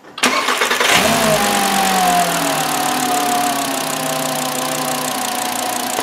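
A 2009 Volkswagen Jetta's 2.5-litre inline-five engine cranks briefly, catches about a second in, then its revs fall back and settle into a steady idle. With a new ignition coil on the misfiring cylinder, it now runs without a misfire.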